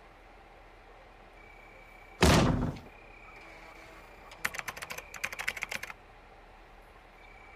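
A loud thump about two seconds in, like a fist slammed on a desk, then a burst of rapid computer-keyboard typing lasting about a second and a half.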